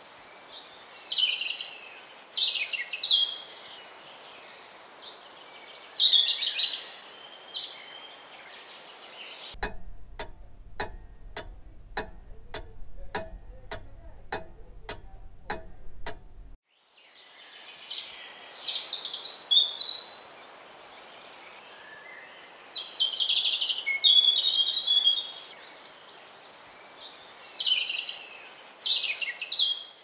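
European robin singing: phrases of high, thin warbling notes, each a few seconds long, with short pauses between them. About a third of the way in, the song gives way for some seven seconds to evenly spaced ticks, about two a second, over a low hum; then the song resumes.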